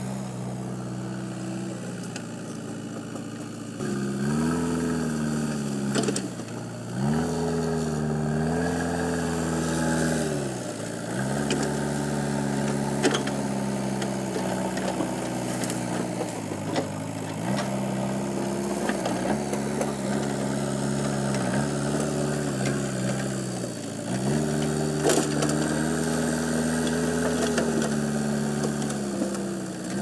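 JCB backhoe loader's diesel engine working under load, its revs repeatedly climbing and dropping back every few seconds as the machine pushes and drives. A few sharp knocks are scattered through.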